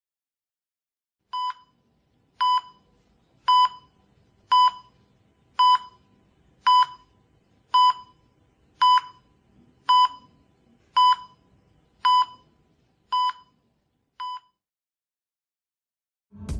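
An electronic beep sounding thirteen times, evenly, about once a second, the first and last beeps quieter than the rest.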